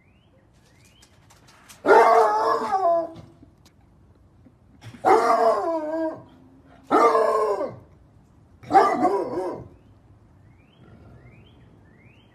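A basset hound baying four times, each drawn-out call about a second long and falling in pitch at its end.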